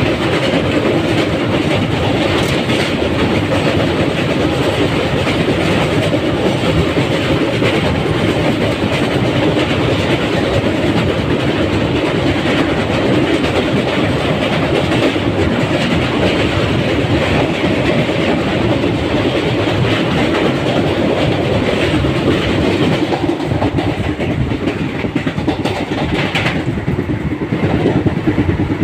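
Train running on the rails, with a steady clatter of wheels throughout.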